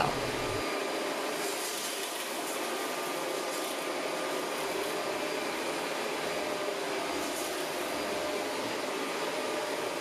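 Shark Rotator Professional Lift-Away upright vacuum (NV501) running steadily as its floor nozzle is pushed over cracker crumbs on a hardwood floor, with a faint steady whine in the motor noise.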